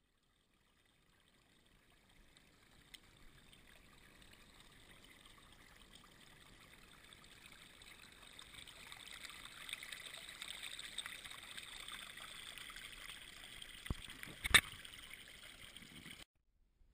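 Small creek trickling and splashing over thin rock ledges close to the microphone, fading in and growing louder. Two sharp knocks come near the end, the second the loudest sound, and then the sound cuts off suddenly.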